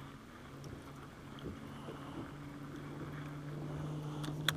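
A boat motor's steady low hum, growing louder over the second half, with a single sharp click near the end.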